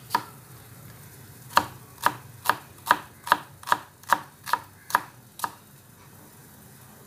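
Kitchen knife chopping an onion on a wooden cutting board, the blade knocking on the board. One chop, then after a pause a steady run of about ten chops, roughly two and a half a second, which stops about two-thirds of the way through.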